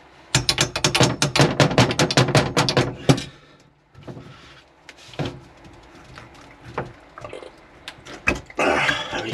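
Grips (water pump pliers) working the brass compression fittings of a double check valve under a sink: a rapid run of loud metal clicks and rattles for about three seconds, then scattered quieter clicks and knocks, and a short scraping rush near the end.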